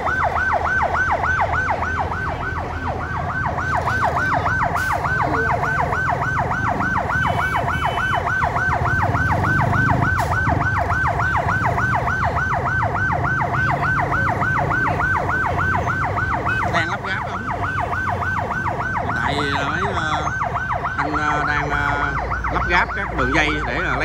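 Fire truck siren yelping, a rapid rising sweep repeated about three times a second, over a low rumble. Voices join in near the end.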